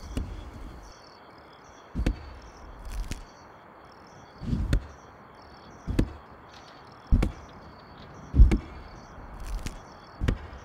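An axe chopping into wood: about nine separate strikes, roughly a second or so apart, over a steady high chirping in the background.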